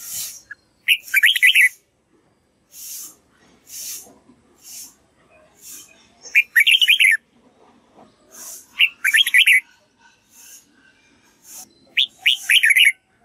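Red-whiskered bulbul singing: four short, loud phrases of quick warbled notes, with short hissy noises between them.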